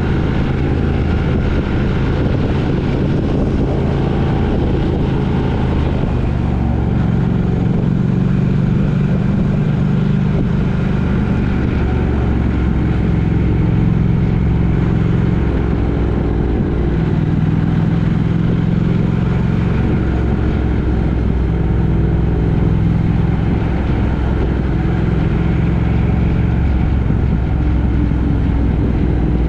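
Steady road-vehicle engine and road noise heard while riding, with the engine note shifting up and down every few seconds.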